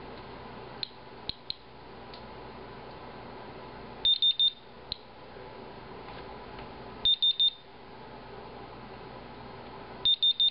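Inspector Alert Geiger counter sounding its end-of-timed-count signal: three sets of four quick high beeps, about three seconds apart, marking that the 10-minute count is over. A few single clicks of detected radiation counts come in between.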